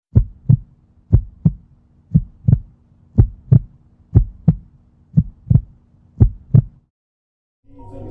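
Heartbeat sound effect: seven double thumps (lub-dub), about one a second, stopping about seven seconds in.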